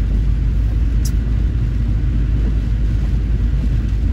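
Inside a car driving on a rain-soaked road: a steady low rumble of engine and tyres on wet tarmac, with one brief sharp click about a second in.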